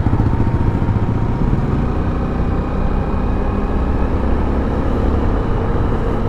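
Motorcycle engine running steadily while riding, a continuous low drone.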